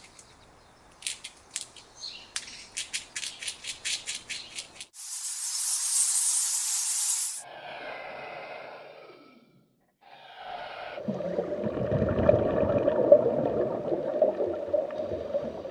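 A sequence of different animal sounds: a rattling run of sharp clicks that quickens, then a few seconds of loud hissing, then a long, loud low call in the last five seconds.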